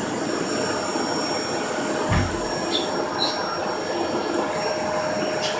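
Small white puppy growling without a break over its toy, a rough rumbling growl, with a low thump about two seconds in and a few short high squeaks.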